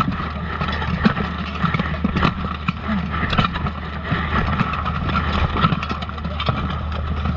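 Plate armour clanking and steel weapons knocking in a close armoured melee: irregular sharp knocks over a steady low rumble from armour and padding pressed against the microphone.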